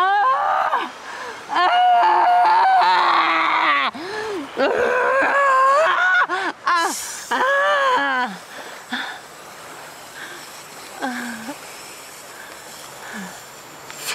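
A woman's high, wavering wailing cries, long drawn-out one after another, then dropping to quieter short sounds after about eight seconds.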